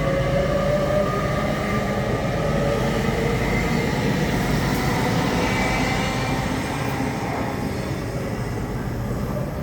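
Passenger train pulling out of the station: its traction motors whine in several tones that rise in pitch as it gathers speed, over the rumble of the running gear, easing off a little near the end.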